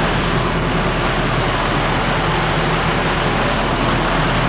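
Snowblower's four-cylinder D245 diesel engine running steadily at an even speed.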